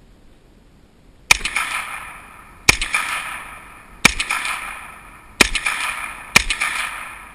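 Five shots from a JRC 9mm semi-automatic carbine fired one at a time, about one to one and a half seconds apart. Each is a sharp crack followed by a trailing echo that dies away before the next shot.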